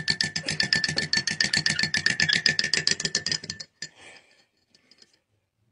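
Background music with a fast, even beat of about ten ticks a second over a held high note, cutting off suddenly about three and a half seconds in. Only faint scraps of sound follow.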